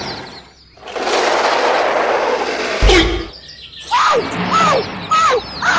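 About two seconds of steady hissing noise, cut off by a single sharp thump, followed by a run of short, repeated bird-like chirps.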